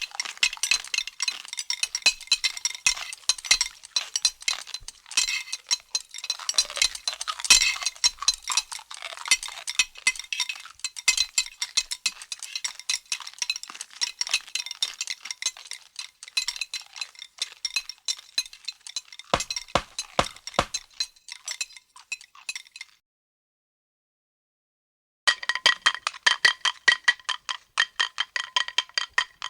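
Anime eating sound effect: fast, continuous clinking and clattering of dishes and utensils, like a ravenous eater working through bowl after bowl. It stops about 23 seconds in, and after a two-second gap a quicker, evenly spaced run of ringing clinks begins.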